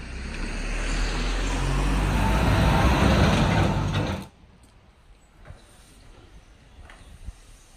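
A motor vehicle passing close on a village street: engine rumble and tyre noise grow louder to a peak, then cut off suddenly about four seconds in.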